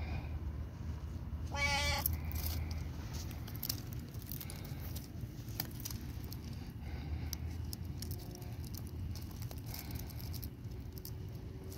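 Black Bombay cat meowing once, a short call about two seconds in.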